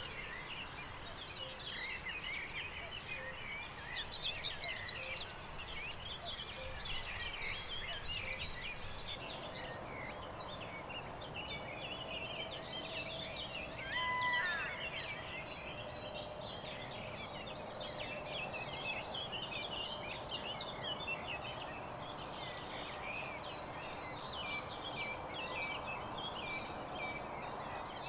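Many songbirds singing together in a continuous chorus of chirps and trills, with one short, loud call standing out about halfway through.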